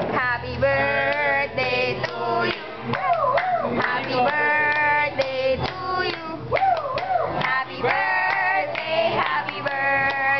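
A group of people singing together, holding long notes with sliding pitches between them.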